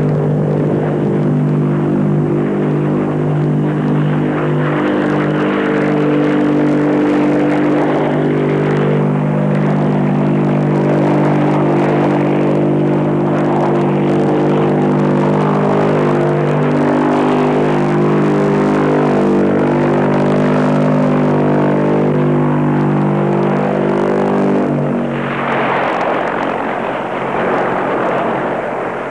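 Convair XFY-1 Pogo's Allison YT40 turboprop and contra-rotating propellers running with a steady, many-toned drone as the tail-sitter lets down vertically and settles onto its tail. The sound fades away near the end.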